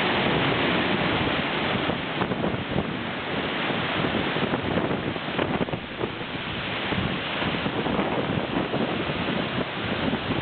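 Large waterfall crashing down, heard from about ten feet away: a continuous, dense rush of water with small swells in level.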